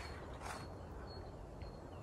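Quiet outdoor ambience with a few faint, thin high-pitched bird notes and a soft rustle about half a second in.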